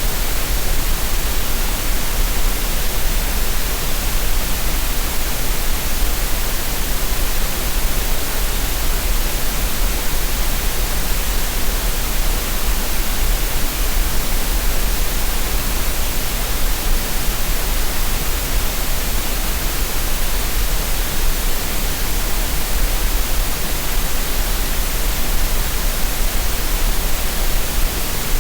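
Steady synthetic green noise: an even, unbroken hiss across the whole range with a constant low rumble underneath, unchanging throughout. It is meant as a relaxation and tinnitus-masking sound.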